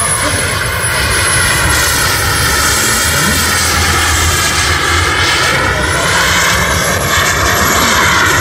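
Turbine-powered RC model jet flying overhead, its engine whine sweeping up and down in pitch as it manoeuvres.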